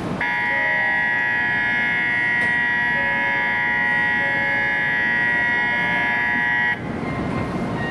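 Electronic platform departure bell on a Shinkansen platform, ringing as one steady, high-pitched tone for about six and a half seconds and then cutting off suddenly: the signal that the waiting train is about to close its doors and leave.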